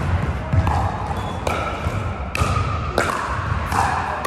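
Pickleball paddles striking the hard plastic ball and the ball bouncing on the hard court: about five sharp, hollow pops, each with a short ringing tail echoing in a large hall, over a steady low room rumble.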